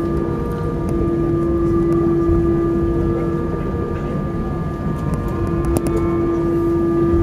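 Cabin noise of an Airbus A320 taxiing after landing: a steady engine hum with a constant tone over a low rumble, and a few faint clicks near the end.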